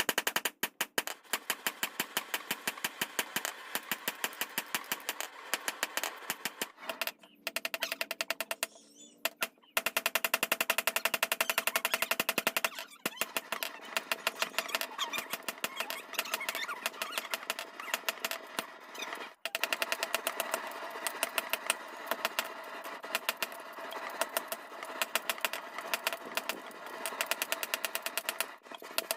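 Rapid, evenly spaced mechanical knocking, many strokes a second, in a blacksmith's shop forging leaf-spring steel. It pauses about seven seconds in, resumes around ten seconds, and breaks off briefly twice more.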